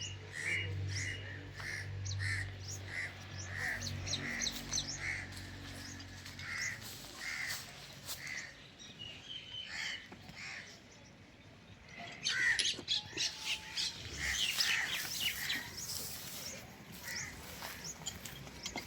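Crows cawing in a regular series, one call about every half second. Later, other small birds join in with quicker chirps. A low steady hum runs underneath at the start.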